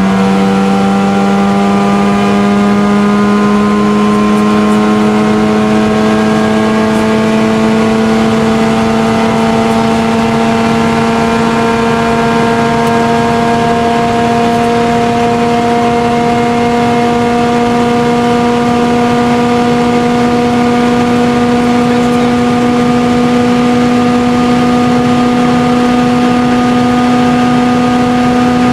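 Mazda RX-7 FD3S's single-turbo 13B rotary engine pulling hard in a high gear, its note rising slowly and evenly as the car gains speed, over wind and road noise inside the cabin.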